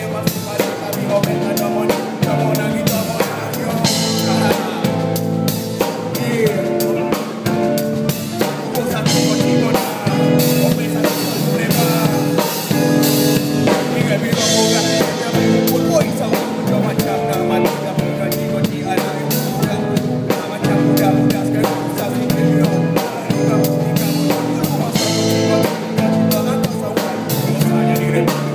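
Drum kit played live with a band: dense kick, snare and rimshot hits over sustained pitched instruments, with cymbal crashes about 4 and 14 seconds in.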